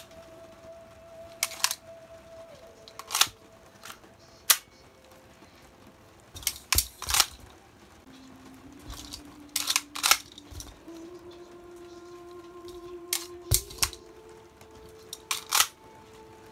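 Sharp plastic clicks and clacks from an airsoft Sig Sauer P226 pistol being handled and worked, its slide, hammer and trigger clicking. The clicks come in about seven clusters, often two in quick succession.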